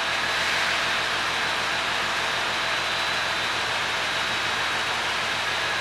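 Steady hum and hiss from the HB-E300 'Kairi' hybrid diesel train standing idle at the platform, with a thin steady high whine over it.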